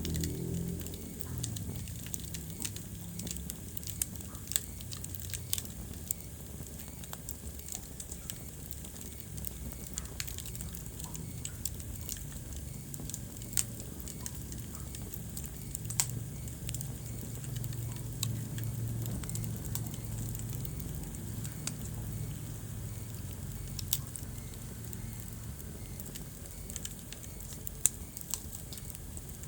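Wood fire burning in a fireplace, with a steady low rumble of the flames and irregular sharp crackles and pops of the burning logs, a few of them louder snaps.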